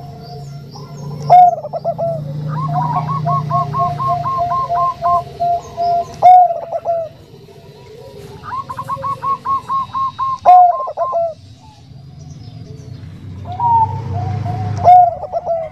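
Zebra dove (Bangkok-bred perkutut) cooing: rapid runs of short, evenly spaced coo notes, each phrase set off by a louder, longer note about every four seconds.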